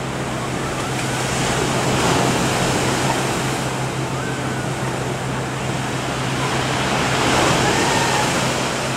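Open-sea ambience: a steady rush of waves and wind, swelling a little about two seconds in and again near the end, over a constant low hum.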